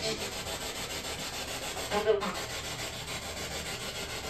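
Spirit box in SB7 mode sweeping through radio stations: a steady, choppy hiss of static pulsing several times a second, with a brief snatch of broadcast sound about two seconds in.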